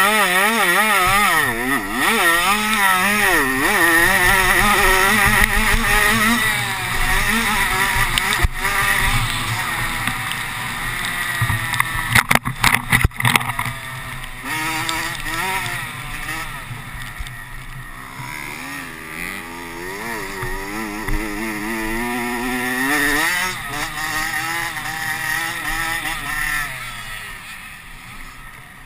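A racing engine heard from an onboard camera, its pitch swinging up and down as the throttle is worked, with wind buffeting the microphone. A few sharp knocks come about twelve seconds in, and the engine grows quieter near the end.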